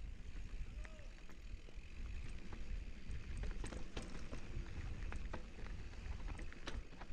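Mountain bike rolling down a dirt singletrack: wind rumble on the helmet-camera microphone and tyre noise on dirt, with scattered sharp clicks and rattles from the bike over bumps.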